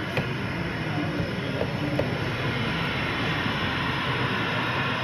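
Model steam tank locomotive and its wagons running slowly along the layout's track, with a few light clicks of wheels over rail joints in the first two seconds, over a steady background hum.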